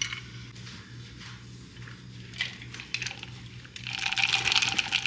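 Ice cubes clinking in a glass of iced drink: a few light clicks, then a dense rattle from about four seconds in.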